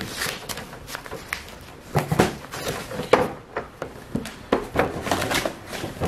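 Cardboard packaging being torn and worked open by hand: irregular rustling, scraping and crackling, with sharper knocks and rips, the loudest about two and three seconds in.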